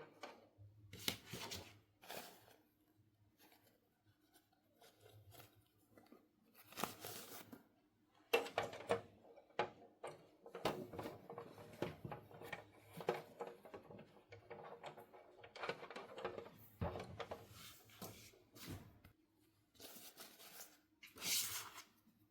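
Hands handling toy packaging and small plastic toy pieces: irregular rustling, tearing and crinkling with light clicks and taps.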